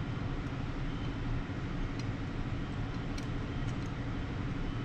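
Steady low hum of shop background noise, with a few faint light clicks as pushrods are set down into the engine's lifters.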